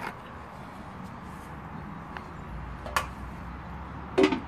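A single sharp clack about three seconds in as the lid of a George Foreman electric grill is set down onto the grill base, over steady background hiss.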